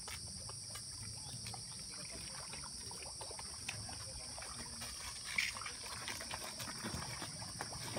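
Small splashes and trickling of water in the shallows, over a steady high insect chorus.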